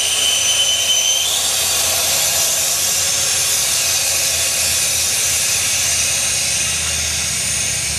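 Steady, loud hiss with no clear rhythm. A faint high whine stops about a second in.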